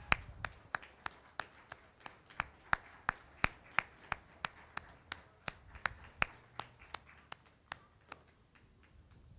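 Sharp hand claps in a steady, even rhythm, about three a second, growing fainter near the end.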